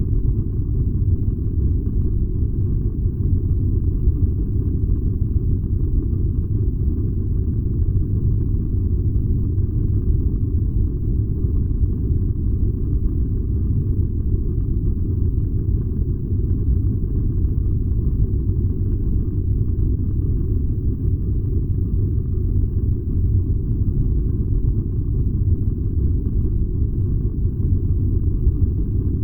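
Furnace burning with a steady, unbroken low rumble and no distinct pitch.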